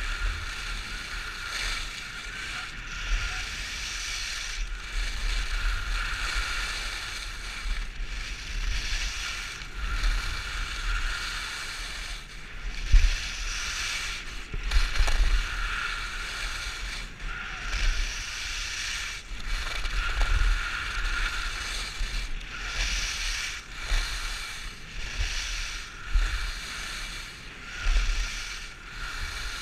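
Skis carving turns on groomed snow, the edges scraping with a hiss that swells and fades with each turn every second or two, with wind buffeting the camera microphone in low rumbles.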